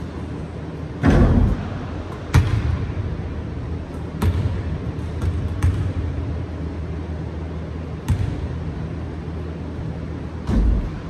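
A basketball hitting the hoop about a second in after a jump shot, then bouncing and being dribbled on a hardwood gym floor: a handful of separate thuds that echo in the large hall, over a steady low hum.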